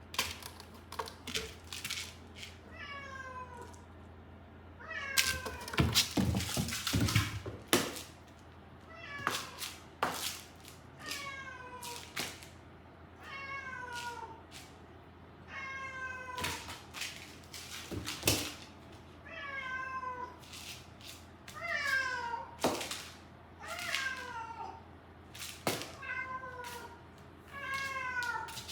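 A cat meowing over and over, about a dozen drawn-out calls that fall in pitch, roughly one every two seconds. Sharp knocks and rustling come between the calls, loudest around five to eight seconds in.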